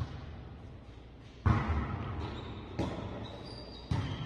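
A volleyball being struck during a rally: a sharp smack about a second and a half in, then two lighter hits about a second apart.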